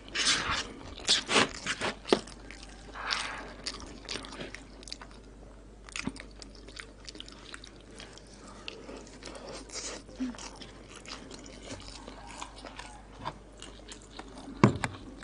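Close-miked eating of koshari: a plastic spoon scraping and scooping in a paper bowl at the start, then crunchy, wet chewing with many small mouth clicks. Near the end there is a single sharp, louder knock.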